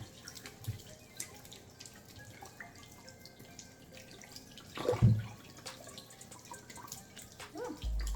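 Water dripping and splashing as whole potatoes are washed by hand in a kitchen sink, with many small scattered clicks. A louder knock comes about five seconds in.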